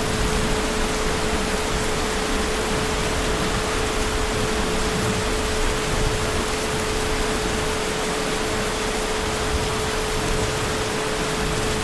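Heavy rain falling as a steady, even hiss, with a faint steady hum held underneath.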